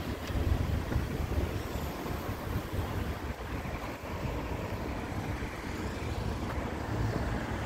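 Passing street traffic, cars going by, with wind gusting on the microphone as a low, uneven rumble.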